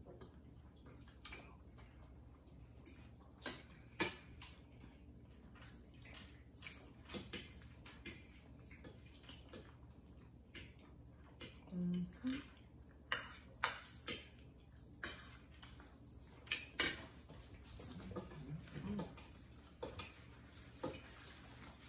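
Forks clicking and scraping against dinner plates during a meal, in scattered irregular taps of varying loudness.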